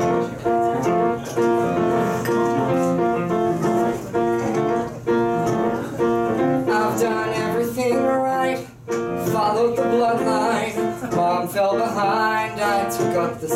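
Piano accompaniment playing a show-tune introduction in repeated chords, with a man's singing voice coming in over it about seven seconds in.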